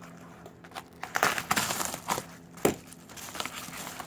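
Packaging being handled: crinkling and rustling for about a second, then a single sharp knock.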